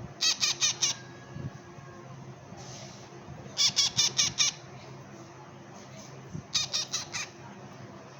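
Parrot chick squawking in three short bouts of quick, shrill calls, four or five calls in each bout: a baby parrot begging to be fed.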